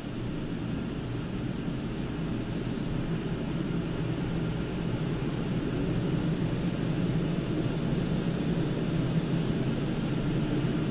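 Automatic car wash machine running: a steady low rumble that grows gradually louder, with a brief hiss about three seconds in.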